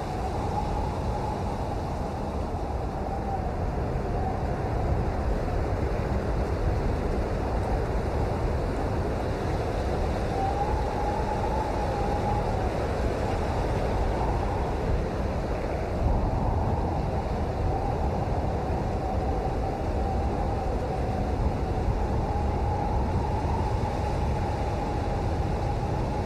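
Steady rain, a dense, even wash of noise that is heaviest in the low end.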